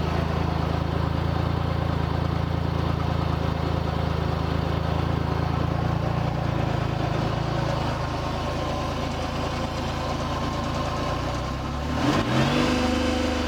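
UTV engine idling steadily, then revving up about twelve seconds in as the joystick-worked throttle is opened.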